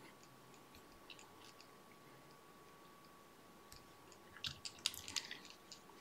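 Faint crackling and small clicks of a hackle feather and tying thread being handled and wrapped onto a salmon fly hook in the vise, with a brief cluster of sharper crackles about four and a half seconds in.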